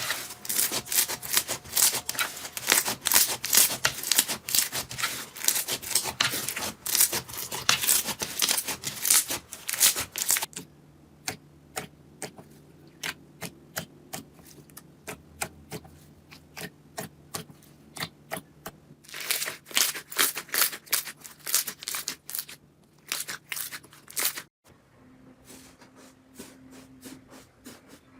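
Slime being squeezed and worked by hand, giving dense crackling and popping clicks that thin out to scattered pops about ten seconds in, then pick up again before cutting off near the end.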